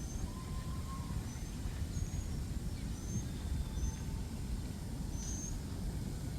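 Wind buffeting the microphone as a steady low rumble, with a small bird giving short, high chirps about once a second.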